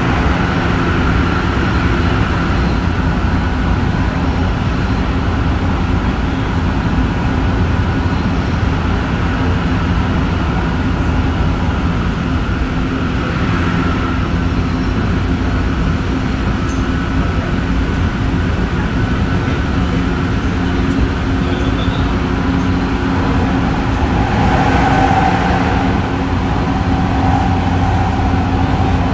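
Tsukuba Express electric train running at speed: a steady rumble of wheels on rail with a few steady tones over it, one higher tone coming in near the end.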